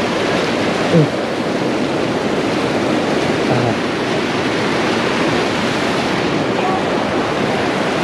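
Mountain stream cascading over boulders: a steady rush of white water.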